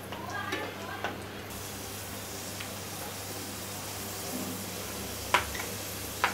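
Raisins frying in hot oil in a kadhai: a steady sizzle, growing brighter about a second and a half in, while a slotted metal spoon stirs them. Two sharp clinks of the spoon against the pan near the end.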